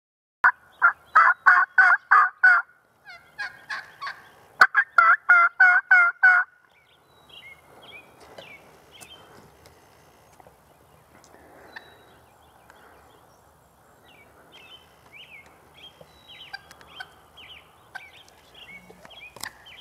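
Wild turkeys calling: two loud runs of rapid repeated calls in the first six seconds, followed by softer, scattered short calls.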